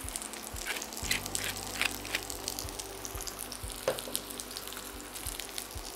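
Onion slices frying in butter in a pan: a steady sizzle with scattered small crackles. A steady low hum comes in about a second in.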